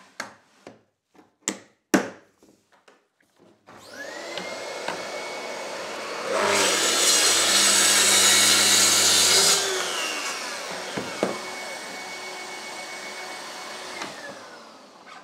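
A few knocks and clicks, then a Bosch GKT 55 GCE plunge saw and its dust extractor start up about four seconds in, the saw's pitch rising to full speed. The saw cuts through a board along a guide rail for about three seconds, the loudest part, then spins down. The extractor runs on and winds down near the end.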